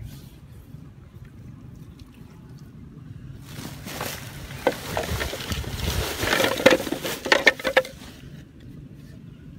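Close rustling and scraping with many sharp clicks as a cloth sack and bamboo tubes are handled, starting about three and a half seconds in, loudest past the middle, and dying away near the end.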